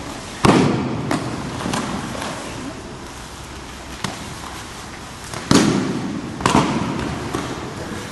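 Aikido breakfalls: thrown partners' bodies hitting the mat three times with loud echoing slaps, once about half a second in and twice more a second apart later on, with lighter knocks of feet and bodies on the mat between them.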